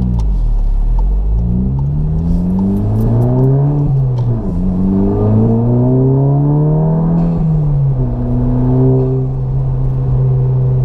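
MK7 Volkswagen GTI's turbocharged 2.0-litre four-cylinder with a center-exit cat-back exhaust and aftermarket downpipe, heard from inside the cabin under hard acceleration: the exhaust note climbs in pitch, drops with an upshift about four seconds in, climbs again, drops with a second upshift about eight seconds in, then holds a steady drone.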